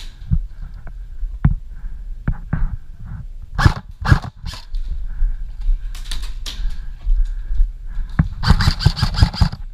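Airsoft guns firing: scattered single shots and BB hits through the middle, then a rapid full-auto burst of about ten shots a second in the last second and a half.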